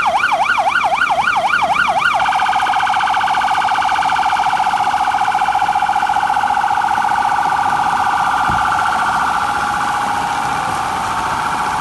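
Emergency vehicle siren sounding loudly over heavy rain. It sweeps up and down about three times a second, then about two seconds in switches to a much faster pulsing yelp that carries on.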